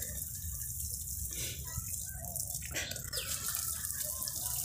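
Water showering steadily from the roses of two plastic watering cans onto young plants and soil.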